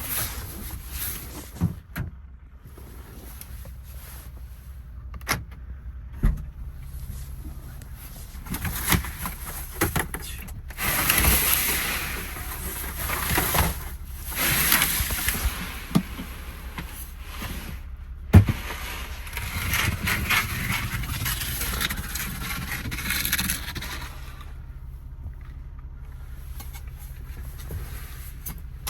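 Cabin sound of a 2012 Toyota Sienna minivan being driven: a steady low rumble with road and tyre noise that swells and eases twice, broken by several sharp knocks, the loudest about 18 seconds in. The van is on test for a reported suspension noise, and the knocks may be that clunk.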